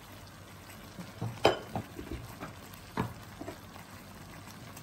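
Thick chicken korma gravy simmering in an open pan: a faint steady sizzle with a handful of short pops and spits, most of them between about one and three and a half seconds in.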